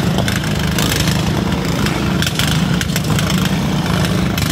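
Demolition derby lawn mower engines running steadily, a continuous low engine noise.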